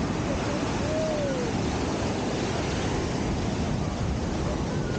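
Surf breaking and washing up a sandy beach, a steady wash of wave noise. A brief tone rises and falls about a second in.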